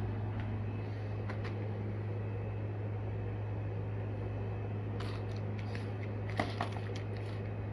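Steady low hum of room noise, with a few light clicks and crinkles of packaged fishing tackle being handled, the sharpest pair a little after the middle.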